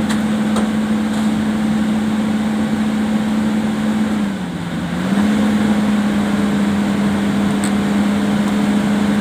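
Hitachi EX200 excavator's diesel engine running steadily under hydraulic load; its pitch drops for about half a second some four seconds in, then recovers.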